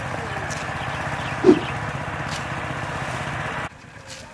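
A steady engine-like drone runs under dry mustard stalks rustling as they are cut and gathered by hand. A short animal call comes about one and a half seconds in, and the drone cuts off abruptly near the end.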